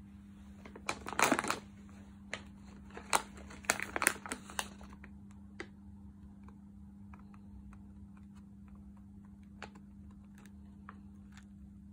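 Plastic potato chip bag crinkling as it is picked up and handled: a cluster of sharp crackles in the first few seconds, then only occasional faint crackles.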